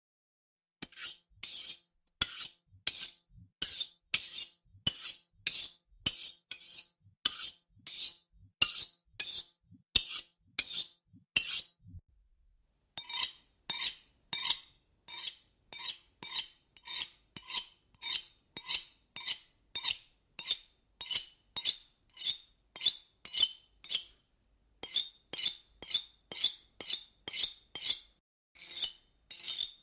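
Large kitchen knife being sharpened: the steel blade is scraped against the sharpener in a steady run of short, hissy strokes, about two a second. The strokes break off briefly twice and then go on a little faster, with a faint metallic ring.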